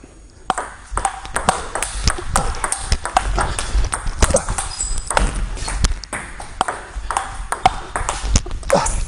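Table tennis ball in a fast rally, clicking off the bats and the table in quick, uneven succession from about half a second in, with low thumps beneath.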